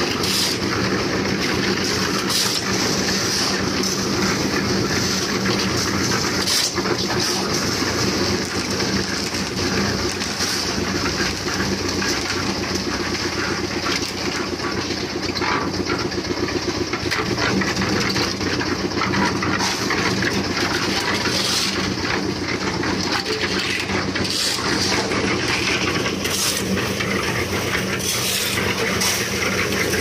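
Portable tilting-drum concrete mixer running steadily, its engine humming evenly under a scattered clatter from the turning drum.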